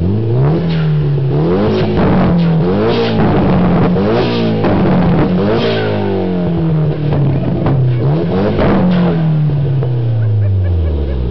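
Turbocharged Mitsubishi engine in an old Nissan Sentra, revved hard again and again while standing still: about five quick rises and falls in pitch, then a long drop back toward idle near the end. Sharp cracks come between the revs.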